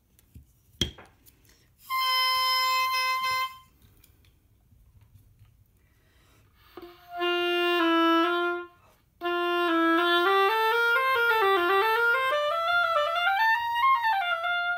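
An oboe reed's tip is clipped with one sharp snap, then the reed crows on its own for about a second and a half. It is then played on the oboe: one held low note, then a short phrase that wanders up and down, with a slight whininess in the tone that the player traces to the heart feeling too thin under the lower lip.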